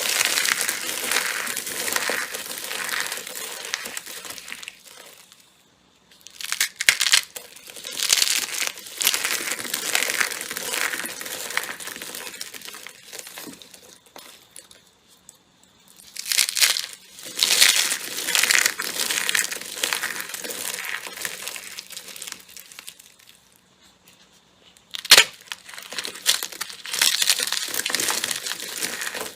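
Slime being squeezed and pressed by hand close to the microphone, making wet crackling and popping in stretches of several seconds with short silent pauses between them, and one sharp snap near the end.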